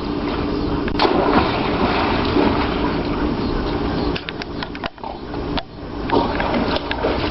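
Water splashing and sloshing in a swimming pool, with a faint steady hum and scattered sharp splashes, dipping briefly about five seconds in.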